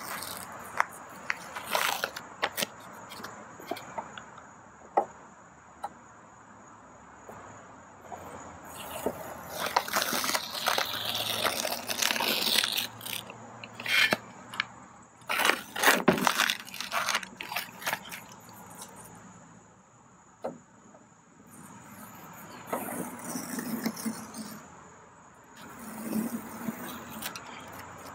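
Masking tape and paper being peeled by hand off an outboard cowling's decals after spray painting: crinkling, tearing and sharp ticks in irregular bursts, loudest around the middle and again near the end.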